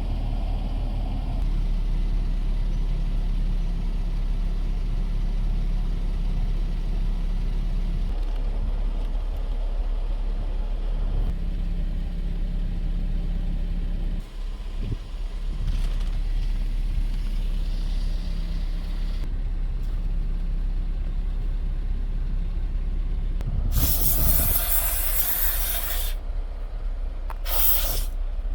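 A steady low mechanical hum, then a loud spray hiss lasting about two seconds, starting about 24 seconds in, followed by two short spray bursts near the end.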